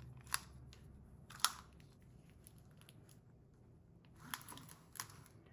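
Faint crinkling of the clear plastic film over a diamond painting canvas as hands press and slide a tape measure across it, with a few sharp clicks, the loudest about a third of a second and about a second and a half in, and a short rustle near the end.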